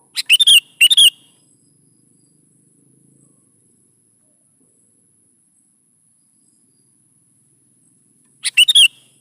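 Sooty-headed bulbul (kutilang) calling: two short, bright, chirping phrases in the first second, a long pause, then another quick phrase near the end. A faint, steady, high-pitched insect-like whine runs underneath.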